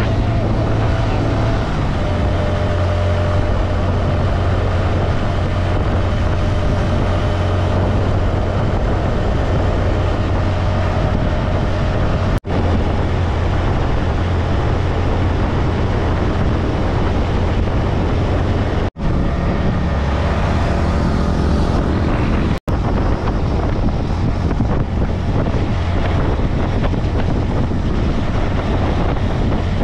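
Motorcycle engine running steadily at cruising speed, with wind rushing over the microphone. The sound cuts out for a moment three times, about halfway through and twice more soon after.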